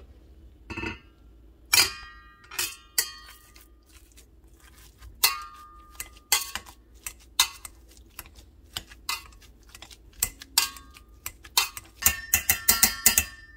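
Wire potato masher knocking against a stainless steel pot while mashing boiled potatoes: irregular metallic clanks, each with a short ring, coming in a quick run near the end.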